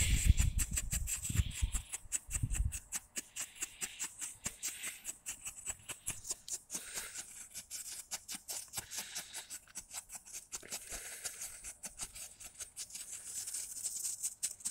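Pyrotechnic strobe firework burning, popping sharply with each flash in a rapid, uneven crackle of several pops a second. A low rumble lies under the first few seconds.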